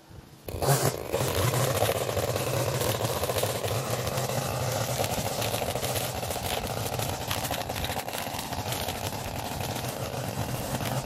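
Small gasoline engine of lawn equipment running steadily at working speed, with scattered clicks and rattles over it. It comes in suddenly about half a second in.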